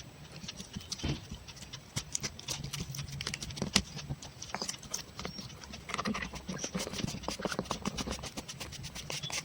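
Slime being squeezed and stretched by hand, giving a rapid, irregular run of sticky clicks and pops.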